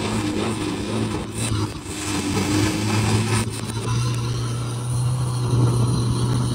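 Heavily modified turbocharged 1,900 cc diesel engine of a racing long-tail boat running hard at speed, a loud steady drone that steps up in pitch about halfway through.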